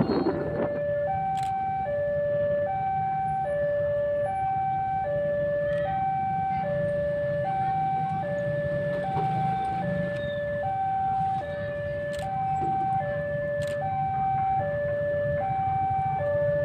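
Railway level-crossing warning alarm sounding a steady two-tone hi-lo signal, the two notes alternating about every 0.8 seconds, with a low rumble underneath.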